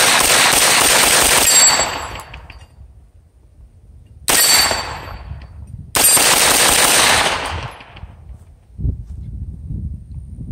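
Rapid-fire strings of 9mm gunfire from an AR9 carbine on an FM9 billet lower receiver. A string of about a second and a half opens, a short burst comes about four seconds in, and another long string follows about six seconds in.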